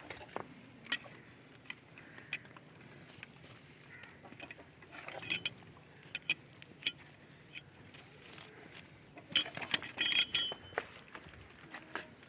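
Scattered sharp metallic clinks and jangles, with a short spell of busier rattling about nine to ten seconds in, as the cattle are tethered in the shed.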